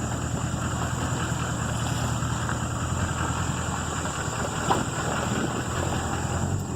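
Pickup truck running at low speed over rough pasture, heard from inside the cab: a steady low engine hum with road and body noise and a faint knock or two.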